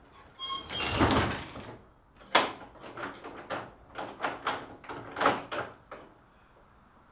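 A large wooden plank door swinging shut with a brief squeak from its hinges, then a run of about a dozen sharp knocks and rattles over the next three and a half seconds, after which only faint room tone remains.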